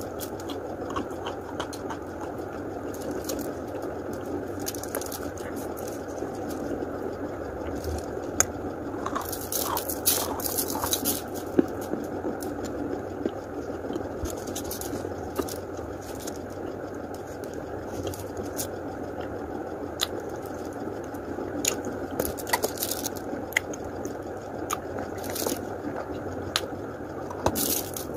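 A person biting and chewing lumps of chalk close to the microphone: irregular crunches and clicks over a steady hiss.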